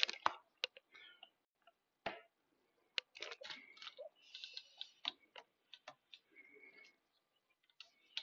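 Handling noise from a silver coin being set on a small plastic display stand among coins in plastic sleeves: scattered sharp light clicks, a cluster at the start and single ones about two and three seconds in, with soft plastic rustling between.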